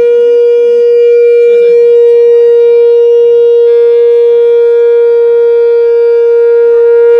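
A conch shell (shankha) blown in one long, loud, steady note, its tone shifting slightly about halfway through.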